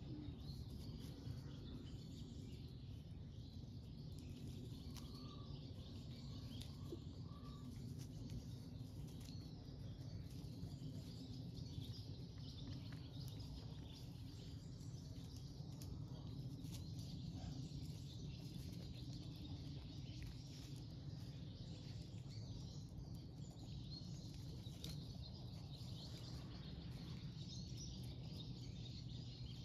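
Quiet outdoor ambience: a steady low rumble with faint, scattered bird chirps.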